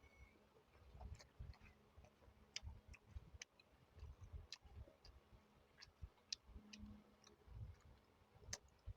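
Faint close-up eating sounds: someone chewing, with scattered sharp, irregular mouth clicks over soft low thuds.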